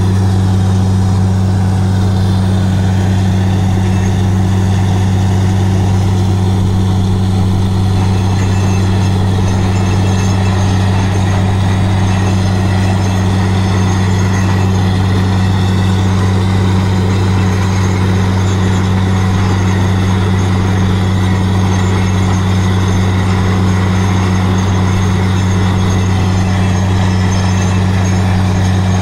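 Truck-mounted borewell drilling rig running steadily, a deep even drone that holds without change, over the hiss and splash of air-lifted water and slurry spraying out of the bore casing: the bore has struck water.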